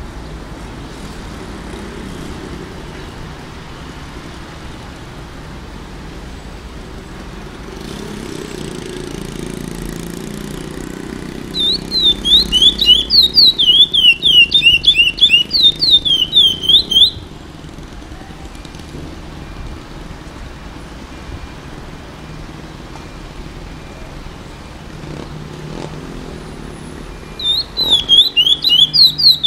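An eight-month-old curió (chestnut-bellied seed finch) in brown juvenile plumage, beginning to sing. It gives a loud run of rapid whistled notes sliding up and down for about five seconds a third of the way in, and starts again near the end, over a steady low background rumble.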